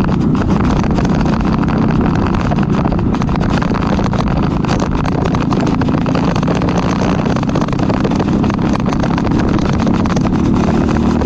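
Briggs & Stratton LO206 single-cylinder four-stroke kart engine running steadily at racing speed, heard from a camera mounted on the kart.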